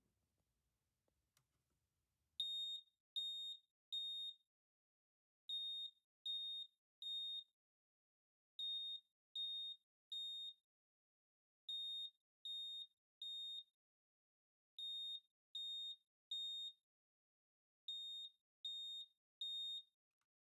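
USI ionization smoke alarm sounding its piezo horn during a test, in the temporal-three evacuation pattern: three high-pitched beeps, a pause, then three more. Six groups of three sound in all, starting about two seconds in and stopping near the end.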